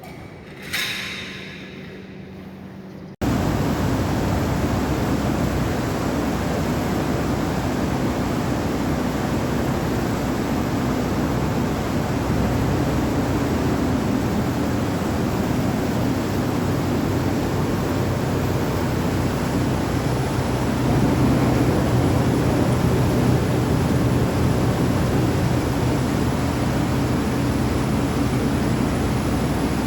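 Paddy grain dryer running: a steady rushing noise with a low hum underneath, like a large blower fan. The noise starts abruptly about three seconds in, after a short sound that fades quickly about a second in.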